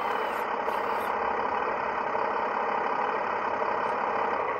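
Simulated heavy diesel engine idling steadily from the sound system of a 1/14 scale RC wheel loader (Kabolite K988, a CAT 988K replica).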